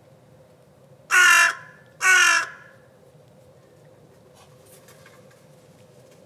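Crow giving two loud caws about a second apart, each about half a second long.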